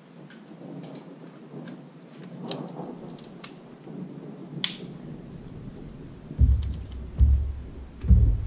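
Thunder rumbling in a thunderstorm, with scattered sharp ticks over a low rumble. In the last two seconds, deep rolling booms come in three pulses and are the loudest part.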